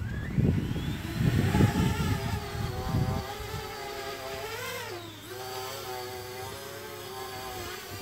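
Parrot Bebop 2 quadcopter's motors spinning up for take-off: a whine rising in pitch, then a steady multi-tone propeller hum as it lifts off and climbs. The pitch wavers and dips about five seconds in. A gusty low rumble runs through the first three seconds.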